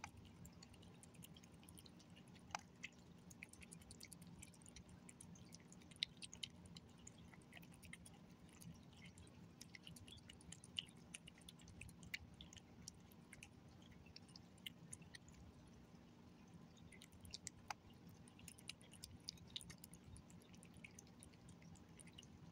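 Gray tabby cat eating soft wet tuna cat food: faint, irregular wet chewing and licking clicks over a low steady hum.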